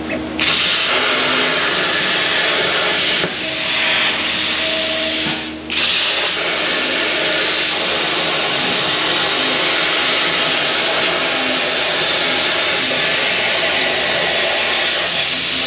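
FastCut CNC plasma table's torch cutting 12-gauge sheet steel at 45 amps: a loud, steady hiss that dips about three seconds in, cuts out for a moment just before six seconds as the arc stops, then starts again and runs on evenly.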